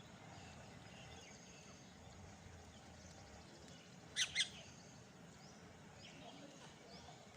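Parrots calling: faint chirps throughout, and about four seconds in two short, loud, harsh squawks in quick succession.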